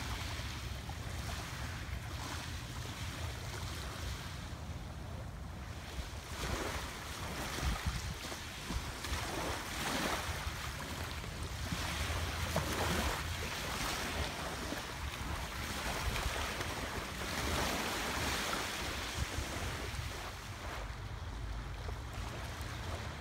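Small waves washing up onto a pebble beach, a hiss of water over gravel that swells every second or two, over a steady low rumble of wind on the microphone.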